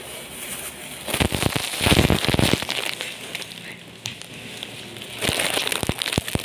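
Clear plastic glove crinkling and crackling as the gloved hand handles the camera close to its microphone, in two bouts: one about a second in and another near the end.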